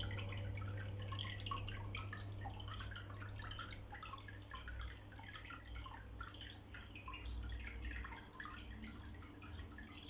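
Indoor corner waterfall fountain running: water trickling and splashing in many small drops, with a steady low hum underneath.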